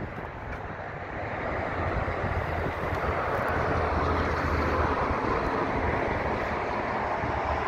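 A distant engine drone that swells about a second in and then holds steady.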